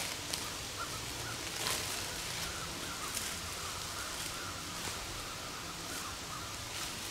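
Sparse rustling in dry fallen leaves: a few soft crunches, one every second or two, over a quiet woodland background.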